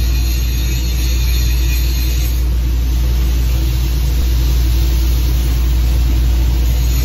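Steady, loud low hum of running welding-shop machinery, unchanging throughout, with no arc crackle.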